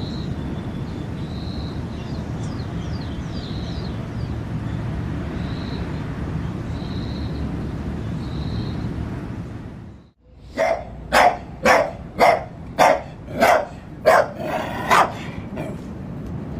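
A dog barking about nine times in quick succession, roughly two barks a second. For the first ten seconds, before the barking, there is a steady low rumble with faint high chirps.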